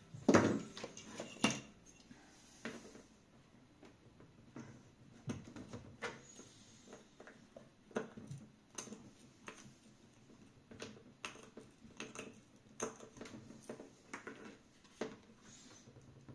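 Pliers and a metal pick clicking, tapping and scraping against a small wooden block on a cutting mat, in scattered short strokes. A few louder knocks come in the first second and a half as the block and tools are handled.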